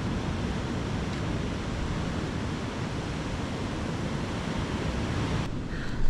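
Ocean surf washing on a beach, a dense steady rush of waves with wind on the microphone, cutting off abruptly near the end.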